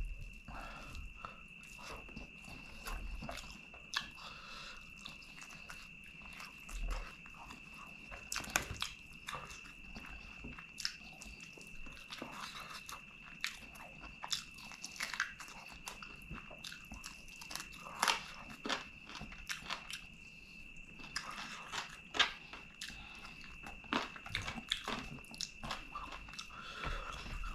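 Close-miked eating by hand: fingers mixing rice and curry and pulling chicken drumstick meat apart on a banana leaf, with chewing and scattered sharp clicks and crunches. A faint steady high-pitched tone sits underneath.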